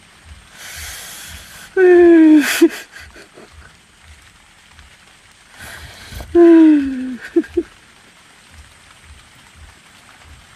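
A man crying out in anguish twice, each a sharp breath in followed by a loud wail that falls in pitch, about two seconds in and again past six seconds.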